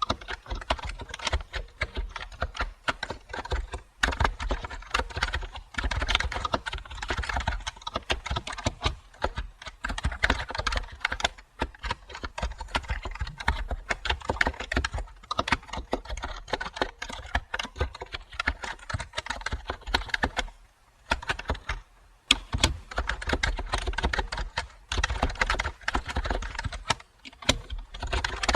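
Typing on a computer keyboard: a steady, rapid run of key clicks, broken by a few short pauses, the longest about a second and a half roughly three-quarters of the way through.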